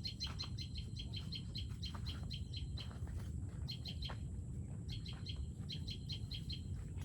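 A bird chirping in quick runs of repeated high notes, several a second, in three bursts with short pauses between, over a steady low rumble.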